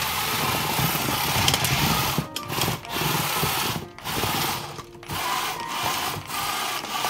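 A small robot's electric drive motors whining and its mecanum wheels rolling on carpet as it is driven at half speed. It moves in several runs broken by short pauses.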